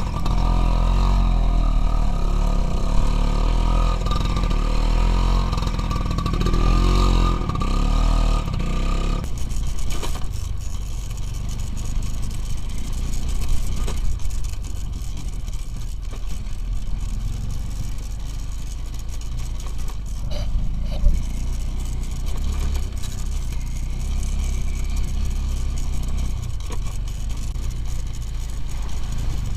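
Motorcycle engine running with rising and falling revs. About nine seconds in, the sound changes abruptly to a lower, steadier rumble with occasional clatter and scrapes.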